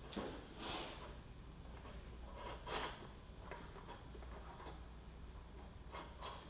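Faint rustling of cloth and thread being handled while hand-sewing, a few short swishes spread apart, over a low steady hum.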